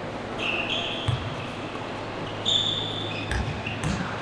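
Basketball bouncing on a gym floor, three thumps, among high-pitched sneaker squeaks from players moving on the court.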